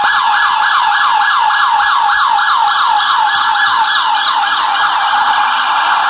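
Electronic siren from a battery-operated toy police jeep's sound chip, a rapid wailing sweep repeating about three times a second, which stops about four and a half seconds in. A steady noisy whir runs underneath and carries on after it.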